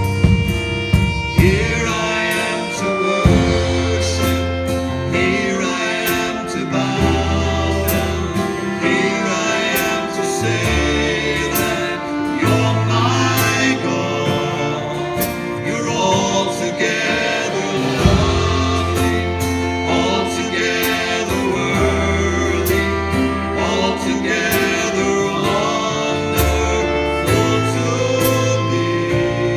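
Worship song: a singing voice over guitar, bass and a steady beat.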